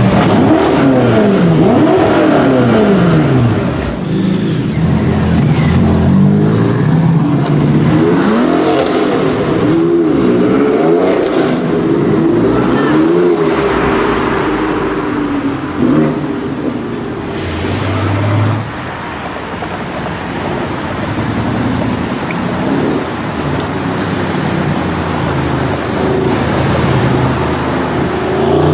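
High-performance car engines revving and accelerating on a street, their pitch rising and falling again and again, loud throughout.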